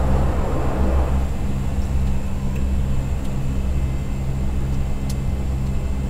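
Convair 580's Allison 501 turboprop engines and propellers heard in the cockpit during the landing rollout, a steady low drone with the propellers still at high speed. A rushing noise over it fades away about a second in.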